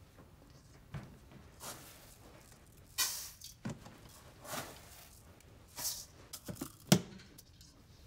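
Rice being taken from a plastic lidded storage bin into a stainless steel bowl: several short rustling pours of grain and small knocks of lid and bowl, with one sharp click, the loudest sound, about seven seconds in.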